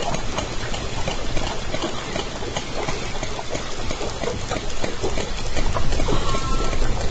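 Underwater hydrophone sound of J pod southern resident killer whales: a dense run of echolocation clicks over a steady low rumble of water and vessel noise, with one short killer whale call about six seconds in.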